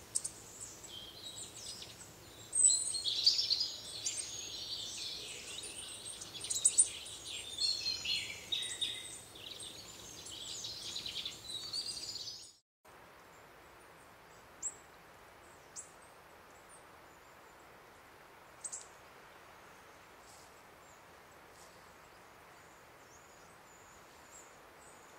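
Small woodland songbirds chirping and singing in dense, overlapping calls. About halfway through it cuts to a quiet woodland background with only a few short, isolated calls.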